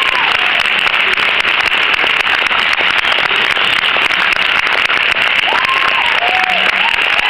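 Audience applauding: a dense, steady patter of many hands clapping, with a few high voices calling out near the end.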